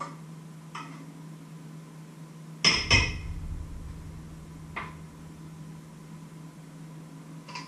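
Stainless steel bowls and pots knocking and clinking as they are handled on a kitchen counter: a few light clinks, then two loud knocks close together about three seconds in with a short ring, and a couple more clinks later. A steady low hum runs underneath.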